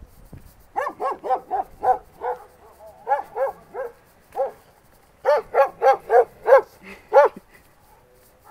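Large dogs barking in three quick runs of short barks, about four a second, with brief pauses between runs.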